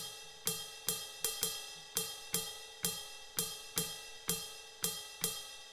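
Ride bell sample of an Alesis SR-16 drum machine, triggered over and over at an uneven pace of about two hits a second, each hit ringing on with clear bell-like tones.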